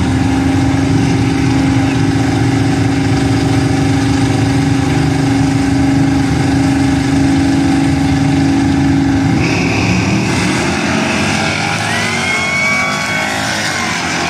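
Drag-racing car engines held at steady revs on the starting line; about nine and a half seconds in the cars launch and the engines go to full throttle, pulling away down the strip.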